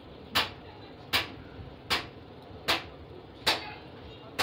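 Sharp, loud taps, about one every 0.8 seconds, from a thin strip or stick striking the plastic case of a lead acid battery at its patched spot.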